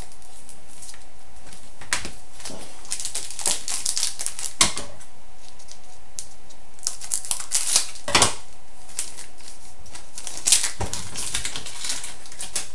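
Trading cards and foil packs being handled: a run of crisp clicks, snaps and short rustles as cards are slid and flipped, in clusters with brief pauses between.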